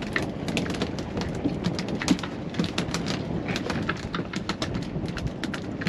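Choppy sea water slapping and splashing against a small boat's hull, a dense irregular crackle of spatters over a steady wash of water noise.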